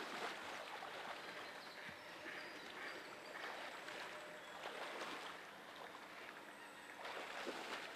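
Legs in chest waders sloshing through shallow flood water, a swish and splash of water with each stride.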